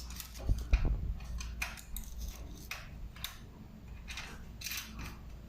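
Light clicks and scratchy scrapes of bicycle parts and tools being handled, in short separate strokes a second or so apart.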